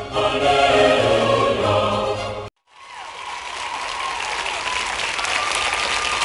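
Choral, operatic-style music with singers, cutting off abruptly about two and a half seconds in. After a brief silence, applause fades in and carries on steadily.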